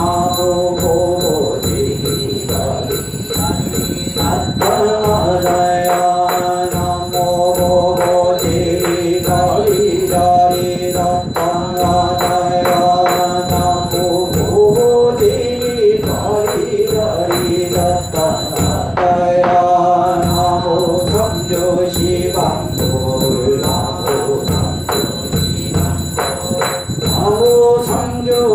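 Korean Buddhist chanting (yeombul): voices sing long held notes on a few steady pitches, over steady struck percussion.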